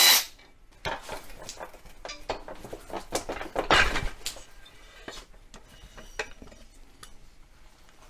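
Scattered metal clinks and knocks as the lower unit of an old Evinrude 18 hp outboard is worked loose from the exhaust housing and lifted away. The loudest knocks come about three to four seconds in, then only faint clicks.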